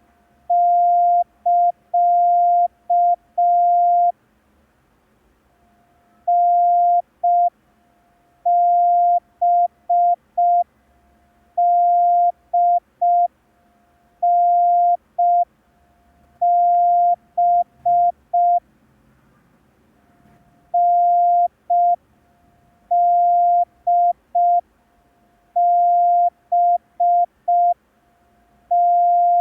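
Morse code practice tone: a single steady beep keyed on and off in dots and dashes, sending groups of the letters D, N and B, opened with the CT start-of-message prosign.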